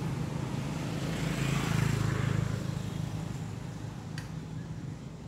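Low engine hum of a motor vehicle that swells to its loudest about two seconds in and then fades, as if passing by. A single sharp click comes about four seconds in.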